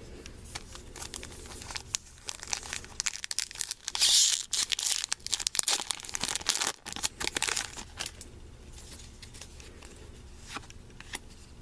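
Foil Pokémon XY Evolutions booster pack being torn open and its wrapper crinkled, loudest and most intense from about four to seven seconds in.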